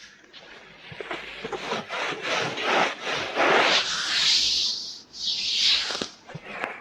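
Close-up ASMR ear-cleaning sounds: rapid scratching and rubbing strokes right at the microphone, with swelling hissy brushes.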